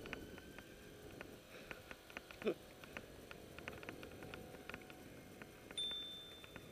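A single ring of a bicycle bell near the end: one clear high tone that starts sharply and fades away. Under it the bike gives faint, irregular clicking as it rolls slowly, and a brief rising squeak sounds about two and a half seconds in.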